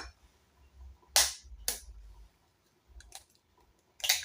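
A hen's egg being cracked by tapping it against a hard edge: a few sharp knocks, about a second in, again half a second later, and once more near the end.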